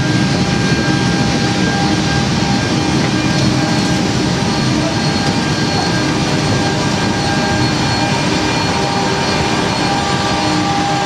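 Steady cabin noise inside an Airbus A380: an even, loud rush with several constant whining tones running through it.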